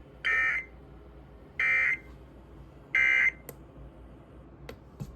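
Emergency Alert System end-of-message data bursts: three short, buzzy digital squawks about a second apart, marking the end of the alert.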